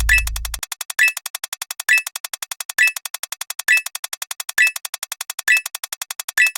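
Electronic counting sound effects: rapid, evenly spaced synthetic ticks at about ten a second, with a louder, higher beep about once a second. A low synth drone cuts off about half a second in.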